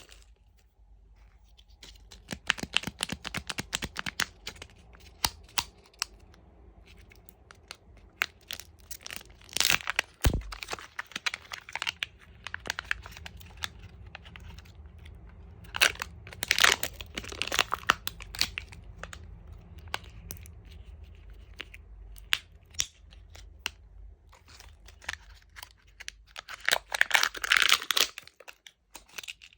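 Plastic candy wrappers crinkling and being torn open, in several bursts of crackling rustle with scattered small clicks and taps in between.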